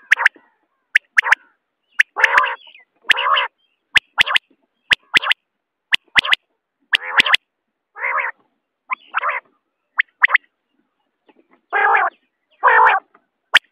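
Common quail calling: short rasping notes, about half a second each and often in pairs, alternating with sharp double clicks, repeating roughly every second.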